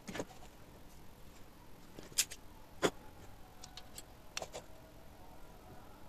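A few faint, sharp clicks and taps from wires, a small switch and a motor terminal being handled during hand soldering, the loudest about three seconds in, over quiet room tone.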